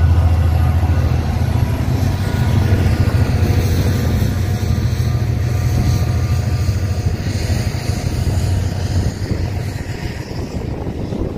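Diesel locomotive engine running with a deep, steady hum that slowly fades as the train moves away.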